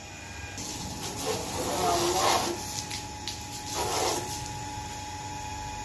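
Water spraying from a hose onto a bicycle: a steady hiss that starts about half a second in.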